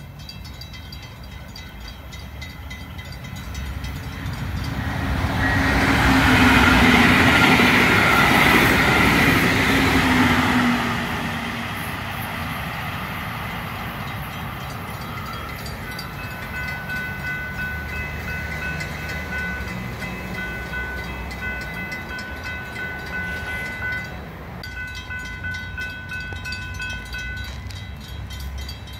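A Brightline passenger train passes at speed, with a loud rush of wheels and engine that builds, peaks for about five seconds and fades as it recedes. Afterwards a steady high-pitched electronic warning tone from the grade-crossing signals keeps sounding.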